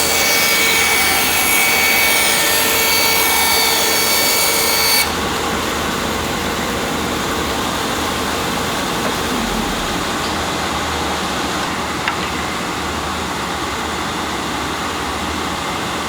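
Laguna band saw cutting straight through a piece of wood: a loud high-pitched whine with several steady tones that ends abruptly about five seconds in as the cut finishes. After that the saw keeps running without cutting, a steadier, quieter noise.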